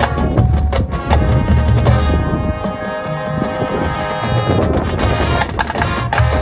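High school marching band playing, with brass and drumline. Heavy drum hits under held chords open the passage, the winds sustain a long chord in the middle, and the drum hits come back near the end.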